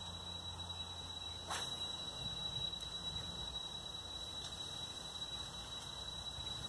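Quiet outdoor ambience: a steady, thin high-pitched tone over a low hum, with one brief swish about a second and a half in.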